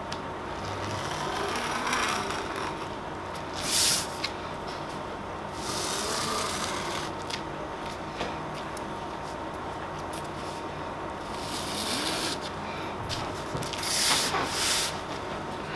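Corrugated cardboard being handled, with short scraping and rubbing strokes of a hand tool along its edge, coming in a few separate bursts.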